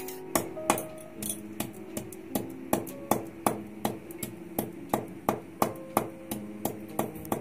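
A hand-held pounder striking down on a concrete floor in a steady rhythm, about three strikes a second, crushing two cardamom pods. Soft piano background music plays underneath.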